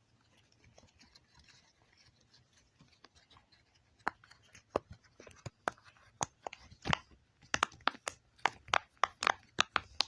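Silicone push-pop fidget toy (a flower-shaped poppet) having its bubbles pressed, a run of sharp little pops. They come scattered at first, starting about four seconds in, then about two or three a second near the end.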